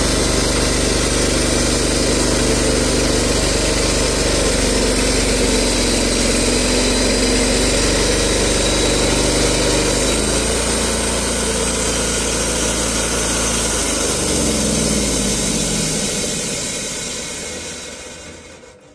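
Portable bandsaw sawmill's engine running steadily. About ten seconds in, the engine speed drops, and near the end it winds down and stops as the mill is shut off.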